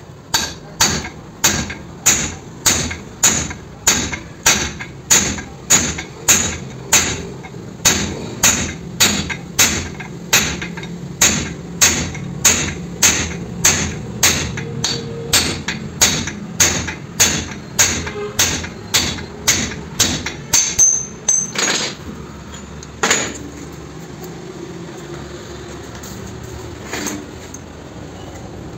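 Hammer blows on the metal of a wheel hub held in a bench vise, about two a second, as the wheel bearing is driven during its replacement. The steady blows stop a little over two-thirds of the way in, followed by two single blows and one faint one near the end.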